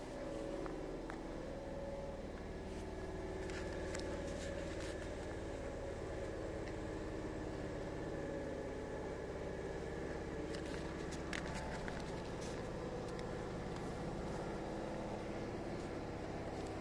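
A parked bus's engine idling steadily, a low even hum with a faint held tone, with a few light clicks over it.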